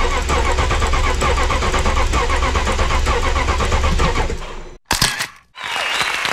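Starter motor cranking a BMW 745Li's 4.4-litre V8 without it firing, an even rhythmic churn for about four and a half seconds that cuts off suddenly. This is the cranking of a wet compression test, with about 20 ml of oil added to the cylinder under test.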